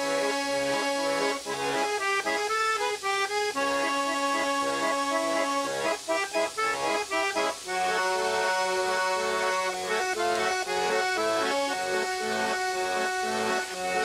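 Background instrumental music with held chords and quick melody notes.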